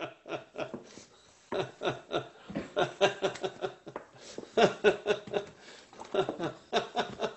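A man laughing heartily in about four bouts of quick, pulsing laughs with short pauses between them.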